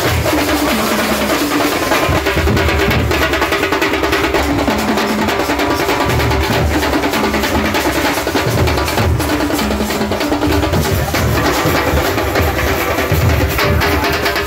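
Nasik dhol drum troupe playing, large dhol drums beaten with sticks in a loud, driving rhythm.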